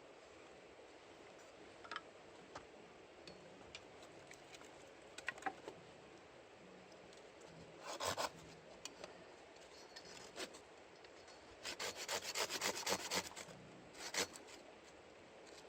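Firewood being cut and scraped into kindling: scattered scrapes and cuts, then a quick run of rough strokes on the wood near the end.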